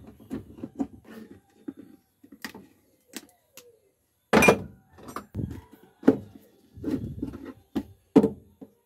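Light clicks and knocks of parts being handled, with three louder thunks about four, six and eight seconds in: the air cleaner being unfastened and lifted off the carburettor of a Suzuki F6A engine that is not running.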